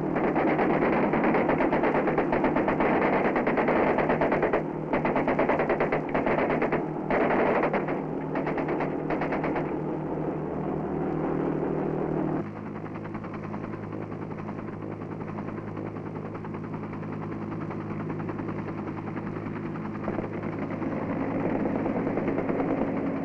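Machine-gun fire in long rapid bursts with short breaks, over the drone of a patrol boat's engine. About halfway through, the sound cuts abruptly to the boat's engine running steadily.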